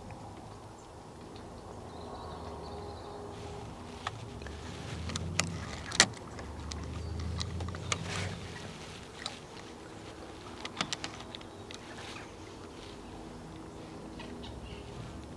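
Fishing rod and reel being handled as the rod is lifted off its rest: scattered sharp clicks and knocks, the loudest about six seconds in, over a low handling rumble in the middle of the stretch.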